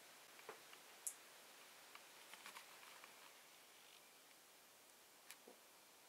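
Near silence: room tone with a few faint, scattered clicks, the sharpest about a second in.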